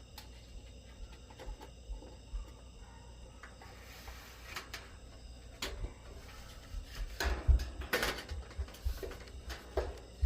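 Scattered light clicks, taps and rustles of wires and metal parts being handled while motor leads are fed through an air-conditioner condenser's fan shroud. The handling grows busier and louder in the second half. Behind it is a faint steady chirring of insects.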